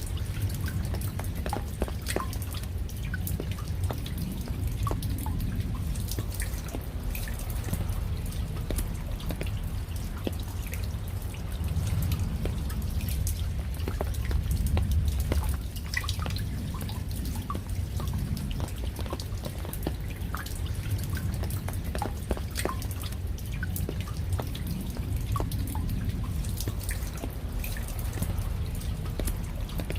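Raindrops falling and dripping as many separate, irregular drops, over a steady low rumble that swells a little about midway.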